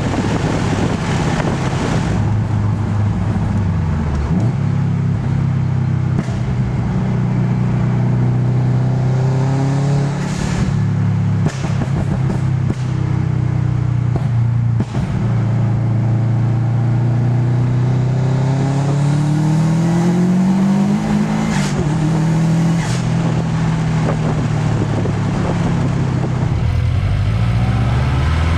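Turbocharged Subaru Impreza WRX flat-four engine running, its note dropping and climbing several times as the revs fall and rise, with a few short sharp noises in the middle and again past twenty seconds.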